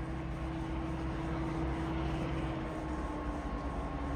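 Approaching CN freight train's lead SD70M-2 diesel locomotive, heard as a steady low engine drone. A held tone over the drone sags slightly in pitch about three seconds in.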